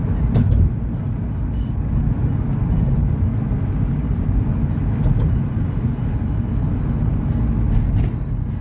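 Engine and road noise heard from inside a moving car: a steady low rumble.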